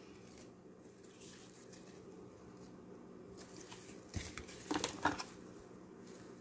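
Quiet room tone, then a few brief soft rustles and light taps about four to five seconds in, as paper box inserts and a small plastic charger adapter are handled.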